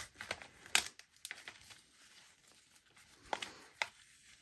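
Faint rustling and crinkling of a kraft-paper treat bag and polyester ribbon being handled as a bow is tied, with a few brief sharper crinkles, one about a second in and two near the end.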